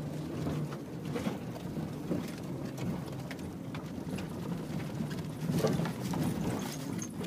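Car interior on a rough dirt track: a steady engine hum with frequent clicks, knocks and rattles as the car goes over the bumps.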